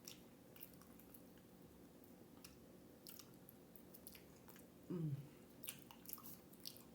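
Faint close-up chewing with wet mouth clicks, a person eating. About five seconds in, a short low hum from the eater falls in pitch.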